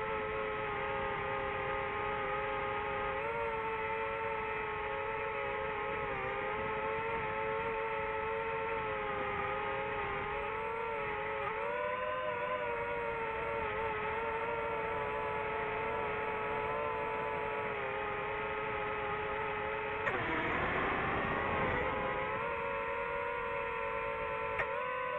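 DJI FPV drone's motors and propellers whining steadily in flight, the pitch wavering up and down with the throttle. About twenty seconds in, the whine turns rougher for a couple of seconds and its pitch sweeps upward, as the throttle is changed.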